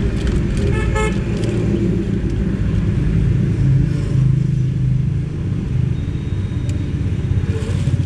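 Steady low rumble with a short vehicle horn toot about a second in.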